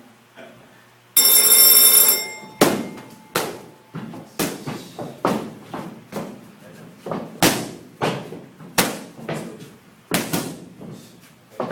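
An electric bell rings steadily for about a second and a half. Then a boxer's punches smack into focus mitts in quick combinations, sharp slaps about every half second to a second, some landing in fast pairs.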